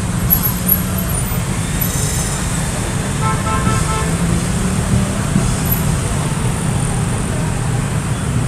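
Steady low rumble of vehicles, with a brief pulsing horn toot about three seconds in.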